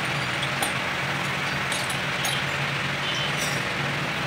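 Steady drone of a running engine with a low hum, and a few light clicks of hand tools being handled.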